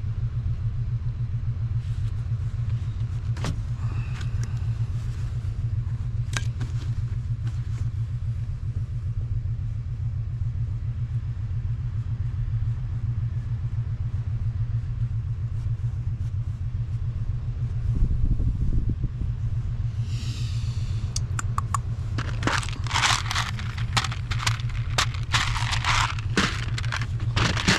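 An engine running steadily with a low, even rumble. From about two-thirds of the way in, a quick run of scraping and clicking handling noises plays over it.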